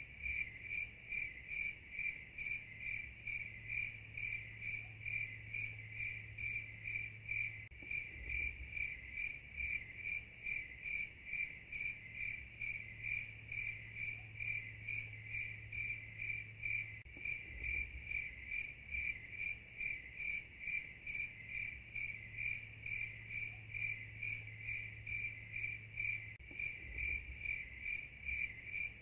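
Crickets chirping: a steady, high-pitched pulsing at about three to four chirps a second, even and unchanging throughout.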